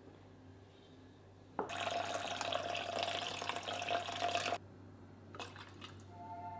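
Water poured from a pitcher into a copper pot: a steady splashing pour that starts about a second and a half in, runs about three seconds and stops abruptly, followed by a few light clicks.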